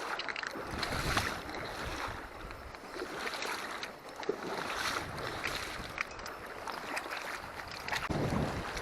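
River water rushing, with gusts of wind buffeting the microphone that swell and fade every second or two.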